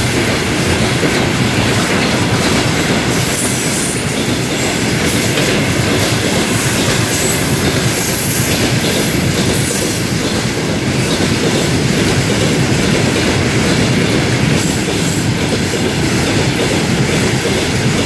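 A freight train of tank cars rolling past close by: a loud, steady noise of steel wheels running on the rails.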